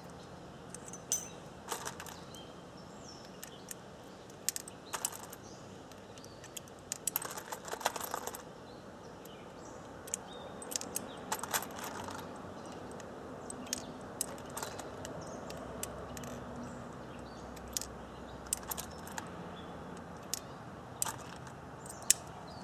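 Ruger Blackhawk single-action revolver being unloaded and reloaded by hand: scattered small metallic clicks and clinks of brass cases and cartridges, with a busy run of clinks about seven to eight seconds in.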